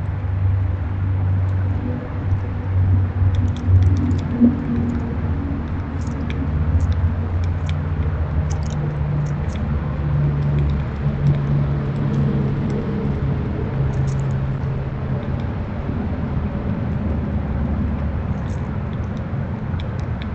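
Low, steady rumble of a vehicle engine, with faint short bird chirps scattered through it.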